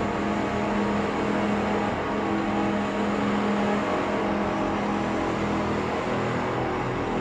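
Ambient drone music from a tape played at half speed and run through a Mutable Instruments Clouds granular module: held low tones under a dense, hissy wash. The held note shifts lower about two-thirds of the way through.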